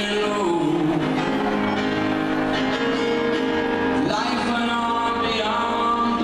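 Live band music in an arena, played over the sound system and heard from the audience, with the performer at the keyboards.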